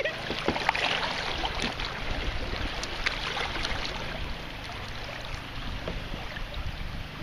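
Creek water running around a paddled canoe: a steady, even rush with a few faint clicks.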